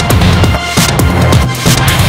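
Loud electronic background music with a driving beat and sustained synth notes.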